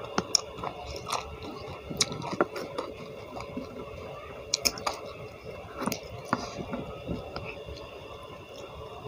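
Close-miked chewing and wet mouth sounds, broken by sharp clicks and cracks as a fresh petai (stink bean) pod is split open by hand and its beans pulled out.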